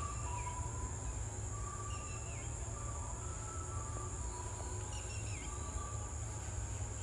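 Outdoor ambience: a steady high-pitched insect drone with a few short bird chirps over a low rumble.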